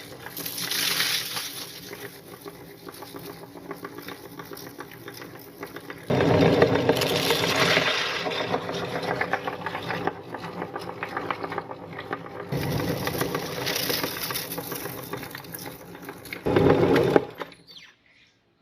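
Electric meat grinder motor running steadily, grinding Chocos chocolate cereal, louder in stretches as it works, then cutting off shortly before the end.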